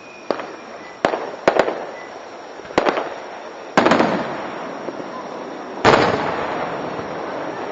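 Aerial fireworks shells bursting: about eight sharp bangs, several in quick pairs, each trailing off in a rolling echo, with one of the loudest about six seconds in.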